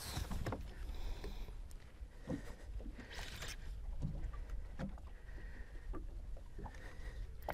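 Quiet sounds aboard a small boat on calm water: a steady low rumble with scattered light knocks, a brief hiss about three seconds in, and a faint high tone that comes and goes.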